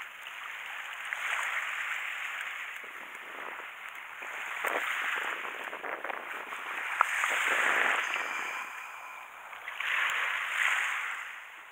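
Small waves washing on the shore: a hissing wash that swells and fades roughly every two to three seconds, with a few light clicks.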